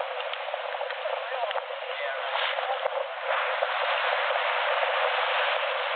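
Wind blowing across the microphone aboard a schooner under sail, mixed with water rushing along the hull. The noise is steady and grows louder about three seconds in.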